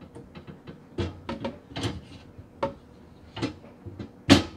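Light clicks and clanks of a black metal wire pull-out trash can frame being fitted onto its sliding tray, a string of short knocks with the loudest one near the end.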